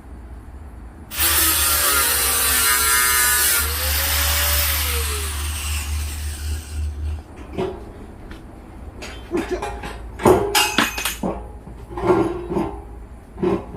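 Angle grinder working steel plate for about two and a half seconds from about a second in, then released and spinning down with a falling whine. Several sharp metal clanks of steel being handled follow in the second half.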